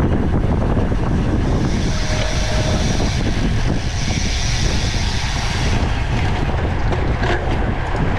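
Wind buffeting the microphone of a camera on a racing bicycle at speed, a steady heavy rumble. A higher hiss joins from about two seconds in and fades near six seconds.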